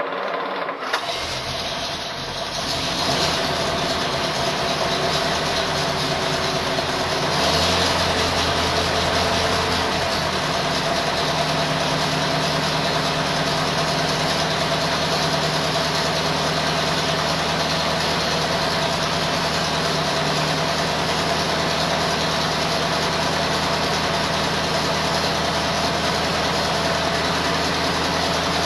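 1934 Packard Eight's straight-eight flathead engine starting cold after six weeks parked, with no priming. The starter cranks briefly and the engine catches about a second in, then settles into a steady idle.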